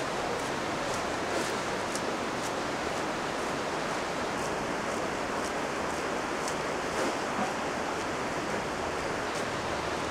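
Steady rushing noise, with faint high ticks about once a second.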